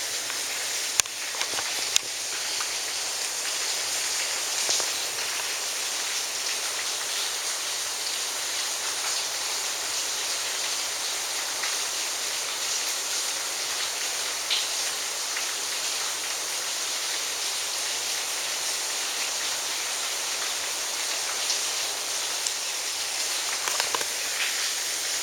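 Steady rain falling as an even hiss, with a few sharp drip or tap sounds about a second and two seconds in and again near the end.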